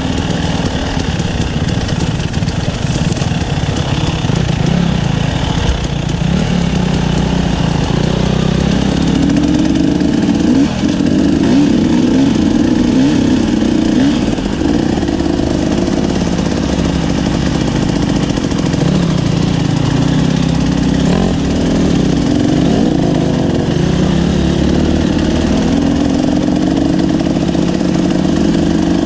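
KTM 300 two-stroke enduro bike engine running under load on a rough trail, its revs rising and falling over and over as the throttle is worked. Heard close up from the rider's own bike.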